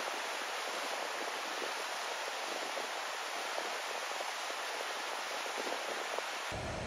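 Snowmelt stream rushing out from under a snow bridge over rocks, a steady hiss of white water. Just before the end it cuts off to a low rumble.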